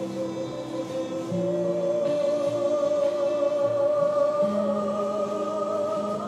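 Slow background music: voices singing long held chords that shift a few times.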